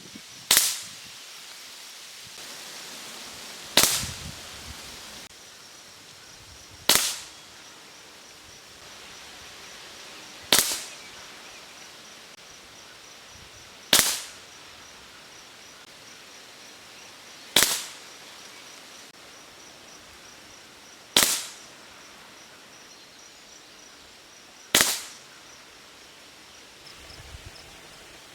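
A Hatsan Factor RC .22 PCP air rifle with a shrouded barrel firing JSB Exact 18.1-grain pellets in a slow string. There are eight sharp cracks, each with a brief tail, spaced about three and a half seconds apart.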